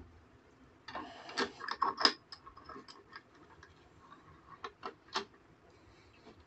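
Hands resetting a cut synthetic rope in a bench vise: a click at the start, a rustling scrape about a second in as the rope is drawn up through the jaws, then scattered light clicks and ticks.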